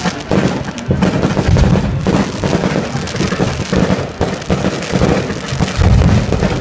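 Aerial fireworks going off: shells bursting in deep booms, with dense crackling from the glittering stars between them. The heaviest booms come about a second and a half in and again near the end.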